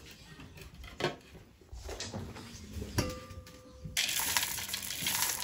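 A spatula scrapes and knocks against a stainless steel mixing bowl while stirring stiff chocolate cookie dough; one knock about three seconds in leaves the bowl ringing for about a second. About four seconds in, chocolate chips poured into the bowl rattle in for over a second.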